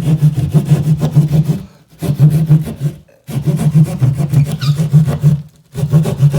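Hand drywall saw sawing through sheetrock in fast back-and-forth strokes, with brief pauses about two, three and six seconds in.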